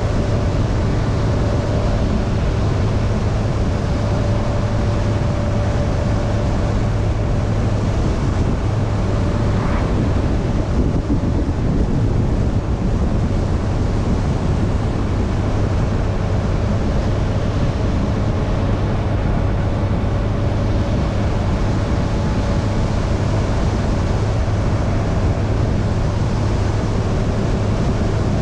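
Yamaha inline-four motorcycle engine running steadily while cruising, with wind rushing over the camera's microphone.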